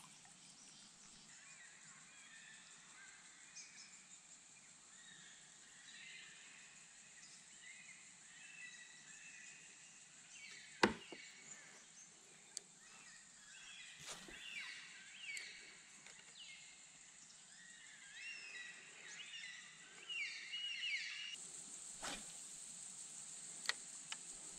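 Birds chirping and calling in riverside bush, with many short whistled notes over a steady high hiss. A single sharp knock comes about eleven seconds in, with a few fainter clicks later.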